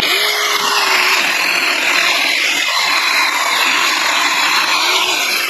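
Saker mini cordless electric chainsaw running hard, its chain cutting cedar limbs, with a steady motor whine that sags slightly under load a couple of times. Near the end of its battery run, the saw is thought by its user to be starting to slow down.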